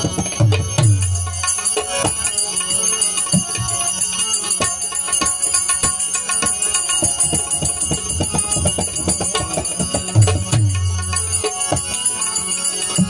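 Instrumental passage of a Gujarati bhajan without singing: small brass hand cymbals (manjira) jingling in a fast, steady rhythm over tabla, whose deep bass strokes come in near the start and again about ten seconds in, with a harmonium underneath.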